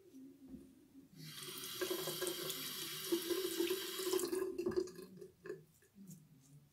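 Sink tap running for about three seconds while the safety razor is rinsed under it, then shut off.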